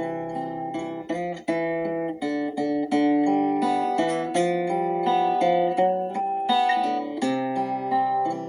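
Instrumental acoustic guitar music, notes plucked in a steady flowing pattern of chords and melody.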